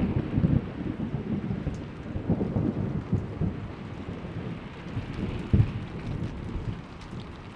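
Thunder rumbling away over steady rain, the rumble fading toward the end with one short louder surge about five and a half seconds in.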